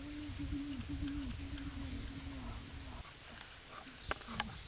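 Forest birds calling: a low, hooting call held on one pitch with small dips for about three seconds, with high chirps above it. Two sharp clicks come near the end.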